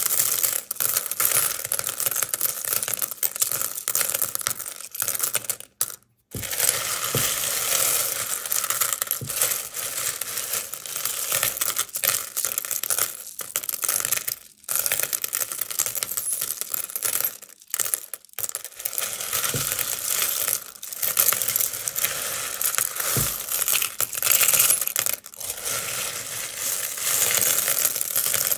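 A large heap of mixed sewing buttons, mostly plastic with some metal, being scooped and sifted through by hand, making a dense continuous clatter of small clicks as they slide and fall against each other. It breaks off a few times for a moment, most fully about six seconds in.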